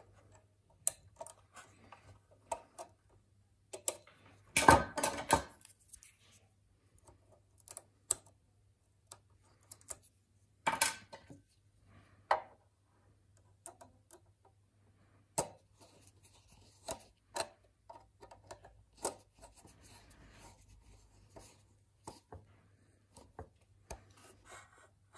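Small metallic clicks, ticks and scrapes of a screwdriver and bare wire jumpers being worked under the screw terminals of an HP 6299A power supply's rear barrier strip, while it is re-strapped for front-panel operation. A louder rustling clatter comes about five seconds in and another near eleven seconds, over a faint steady low hum.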